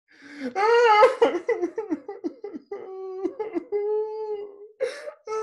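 A man's exaggerated, theatrical sobbing and wailing in a high-pitched voice: choppy broken sobs at first, then longer drawn-out wails.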